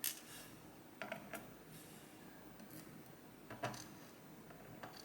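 A few light metallic clicks and taps of small lock parts and tools being handled while pin stacks are pulled from a Medeco M3 lock cylinder, spaced irregularly with faint room noise between.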